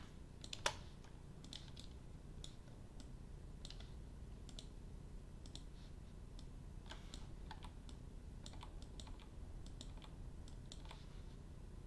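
Computer keyboard keys and mouse buttons clicking at irregular intervals, with one louder click just under a second in, over a low steady hum.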